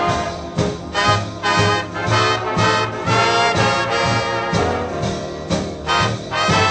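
Instrumental swing band music with a brass section over a steady bass beat; no singing.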